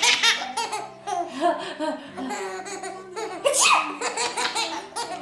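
A baby, about seven months old, laughing in a run of giggles and belly laughs, with two loud squealing bursts, one at the start and another about three and a half seconds in.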